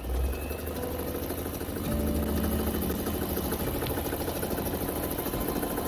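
Brother 661 electric sewing machine running, its needle stitching through several layers of denim. It starts abruptly and runs steadily, getting a little louder about two seconds in; the machine has been freshly cleaned, oiled and greased and runs smoothly.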